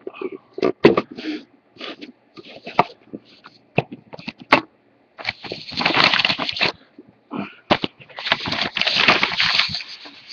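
Papers and cardboard packaging handled and rustled close to the microphone: a run of knocks and clicks, with two longer stretches of rustling, about five seconds in and again near the end.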